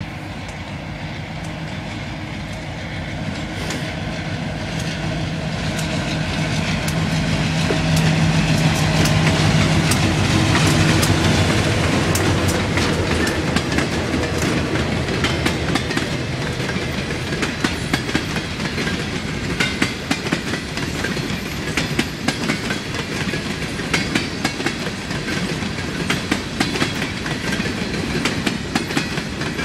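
Diesel freight locomotive approaching and passing, its engine drone growing louder over the first ten seconds or so. Then a long string of container cars rolls by with a steady, rhythmic clickety-clack of wheels on the track.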